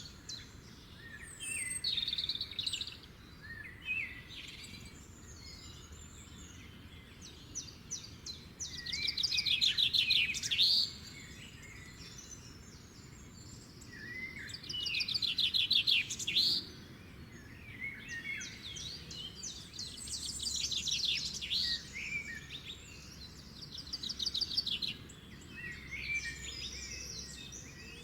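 Songbirds singing: high phrases of rapid trilled notes, the loudest coming about every five to six seconds, over a faint steady low background noise.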